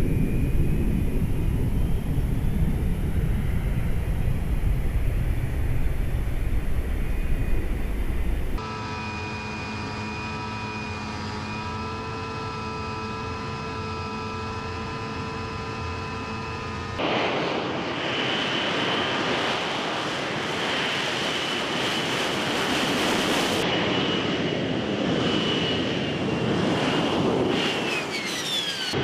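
AV-8B Harrier II jet noise in three shots joined by sudden cuts. First a low rumble from a Harrier hovering in the distance. Then a quieter, steady blend of whining tones from the engine heard inside the cockpit, followed by a louder jet whine with a high steady tone as a Harrier rolls down the runway, and a falling whistle near the end.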